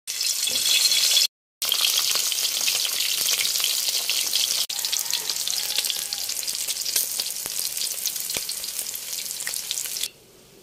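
Food frying in a hot pan: a steady sizzle full of small crackles and pops. It breaks off for a moment about a second in and stops abruptly near the end.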